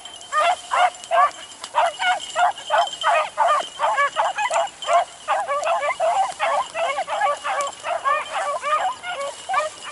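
Several beagles baying as they run a rabbit's trail, a steady stream of short pitched bays, about three a second, some overlapping.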